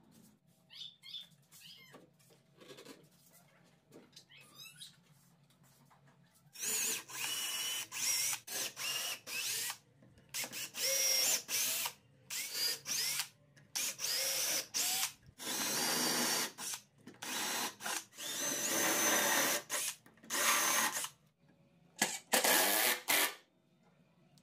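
Electric drill boring holes through an aluminium rail into plywood, run in a dozen or so short bursts that start and stop, with a whining motor note, beginning about six seconds in.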